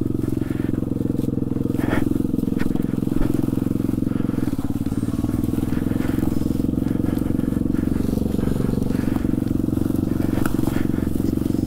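Trailmaster TM29 pit bike's small four-stroke engine running fairly steadily while being ridden, its pitch dipping slightly a couple of times. A couple of light knocks sound over it.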